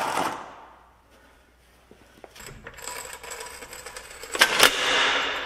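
Metal parts and tools clinking and scraping against each other, with two sharp metallic clinks about four and a half seconds in.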